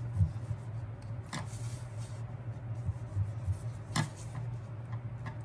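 Light handling of a plastic ruler and paper on a table: a few soft knocks and a short scratchy rub of drawing on the paper, over a steady low hum.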